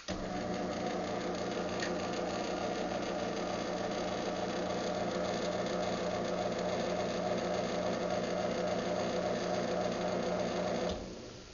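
Craftsman belt-drive garage door opener running through an opening cycle: its motor starts with a click, hums and whirs steadily for about eleven seconds, then stops abruptly near the end.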